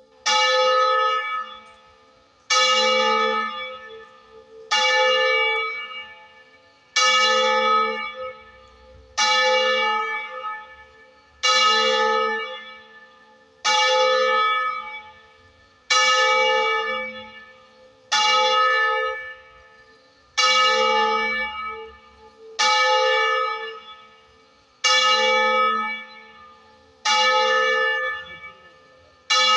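A single church bell in a tower, one of a ring of three cast in 1926, tolling slowly with one stroke about every two seconds. Each stroke rings out and fades before the next.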